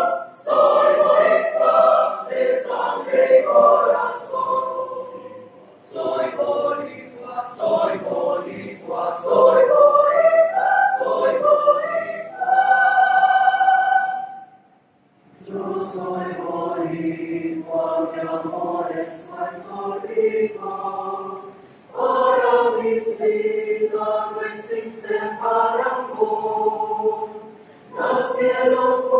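Mixed youth choir of young men and women singing a song with words in several-part harmony. About halfway through, a held chord ends in a brief pause before the next phrase.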